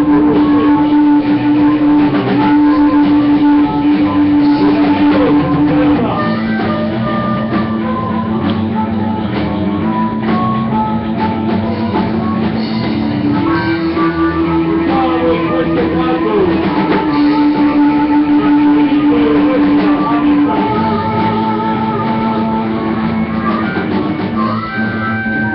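Live rock band playing an instrumental passage: electric guitars, bass guitar and drum kit, with long held notes several seconds each over the rhythm.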